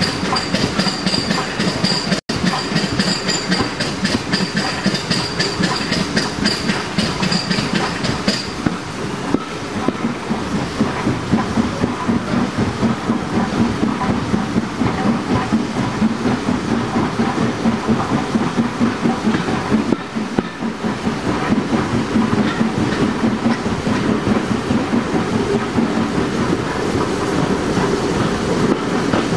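Steam-hauled train running, heard from an open carriage window: a steady rhythmic clatter of the coach wheels over the rail joints. A thin high tone sounds over it and stops about eight seconds in.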